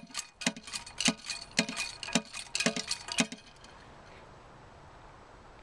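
Hard clinks on the porcelain toilet tank, about two a second, each with a short ring, stopping about three and a half seconds in; then a low steady hiss.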